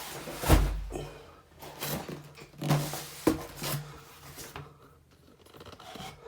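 Boxes and items being moved and set down: one heavy thump about half a second in, then several lighter knocks and some rustling.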